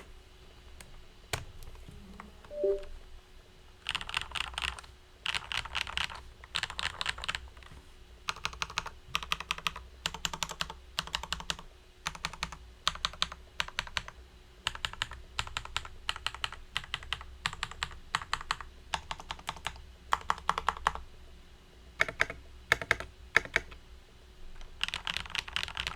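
Typing on a Model VI budget mechanical keyboard: bursts of fast keystrokes with short pauses between them, and a few single key presses near the end.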